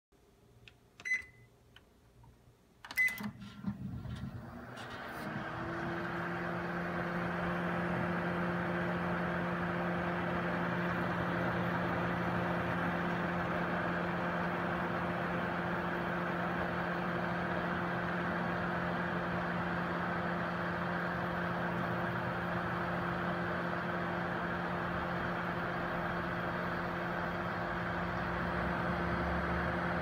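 Inverter microwave oven: two keypad beeps as buttons are pressed, then the oven starts up and runs with a steady hum and fan rush.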